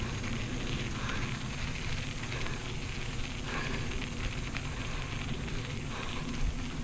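Bicycle tyres rolling fast over a packed dirt trail: a steady gritty rumble with small rattles and ticks.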